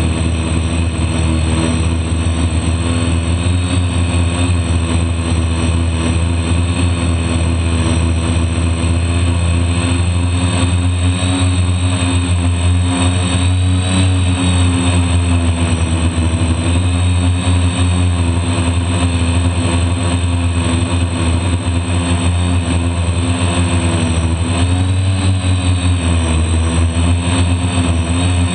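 DJI F450 quadcopter's electric motors and propellers whining steadily, picked up by the camera riding on the drone. The pitch drifts up and down as the motor speeds change, most noticeably near the end.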